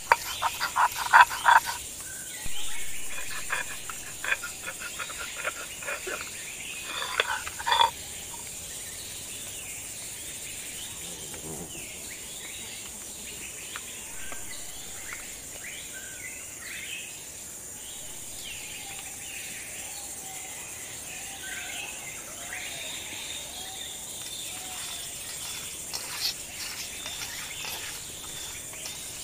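Stone roller grinding spices on a flat grinding stone in quick rhythmic scraping and knocking strokes, in two spells over the first several seconds. Crickets or other insects buzz steadily under scattered bird chirps throughout.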